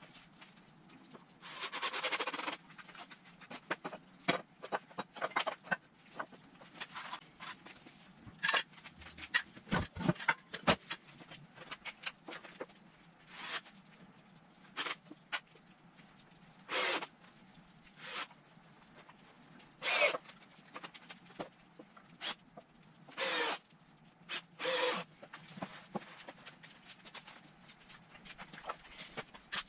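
Short bursts of a power drill driving construction screws into 2x4 and 2x6 lumber, each half a second to a second long, amid knocks and clatter of wood and tools.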